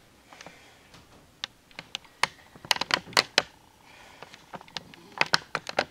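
Irregular light clicks and taps, clustered about three seconds in and again near the end.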